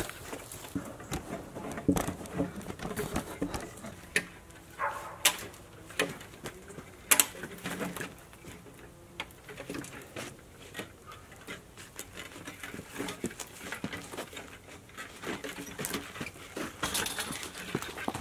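Footsteps and a loaded hand cart pushed over rough, leafy ground, with irregular knocks and rattles.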